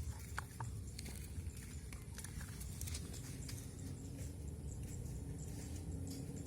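Plastic toy vehicles being handled, with scattered light clicks and taps over a steady low hum.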